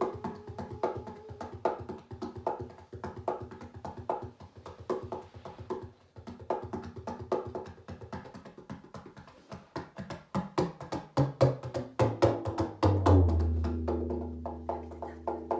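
Tabla played in a fast, dense run of sharp strokes that quicken and grow louder, with the bass drum's low strokes sliding down in pitch. About thirteen seconds in, a long deep tone rings on steadily.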